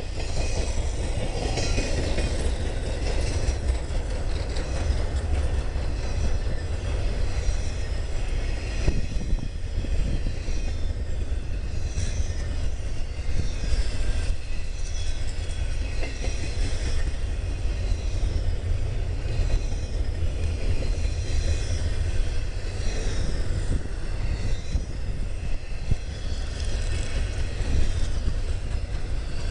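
Cars of an empty coal train rolling past in a steady rumble, with high-pitched wheel squeal coming and going.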